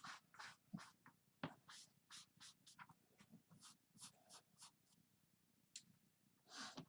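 Faint, quick scratchy rubbing strokes by hand at a craft table, about three a second, pausing briefly about five seconds in, with a slightly louder scrape near the end.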